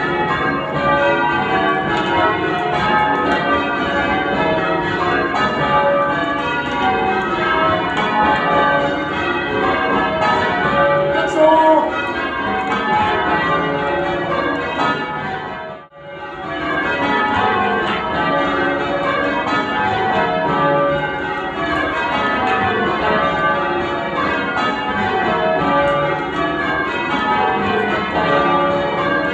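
Change ringing on a ring of ten church bells: a steady, overlapping cascade of bell strokes. It cuts out abruptly about halfway through and resumes at once.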